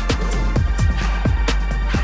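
Electronic background music with a steady beat of deep bass drum hits that drop in pitch, and crisp hi-hat ticks.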